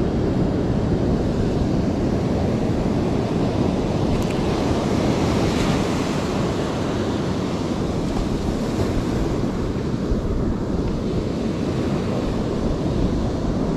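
Steady rush of ocean surf breaking on a sandy beach, with wind buffeting the microphone.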